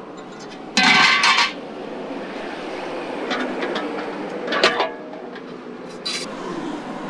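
Metal pot lid and serving tongs clattering as food is dished out from large metal cooking pots: a loud scrape about a second in, then lighter clinks and knocks.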